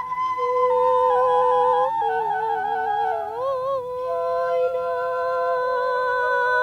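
A flute plays a slow melody of long held notes while a woman sings over it in a wavering, ornamented style.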